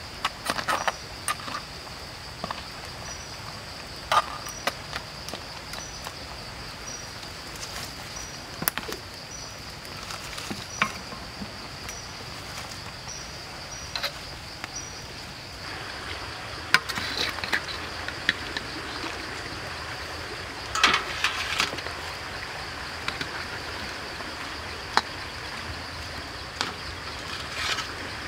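Steady high-pitched insect drone, with a faint chirp repeating about every half second through the first half. Over it come scattered sharp clinks and scrapes of a metal ladle against a wok and a metal serving tray, and rustling steps on dry leaf litter.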